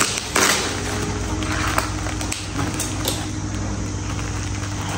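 Packaging being handled and unwrapped, rustling and crinkling in a few short bursts over a steady low hum.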